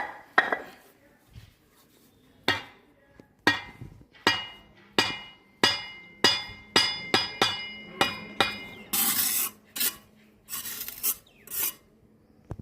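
Hand-tool construction work: about a dozen sharp metallic strikes, each ringing briefly, coming faster and faster. Two longer scraping passes follow near the end.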